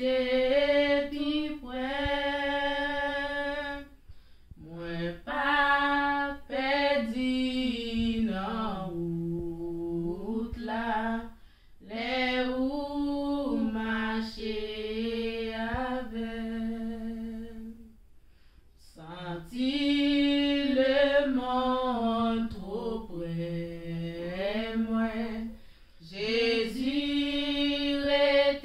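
Women singing a Haitian Creole worship song unaccompanied, in long phrases of held notes with brief pauses between them.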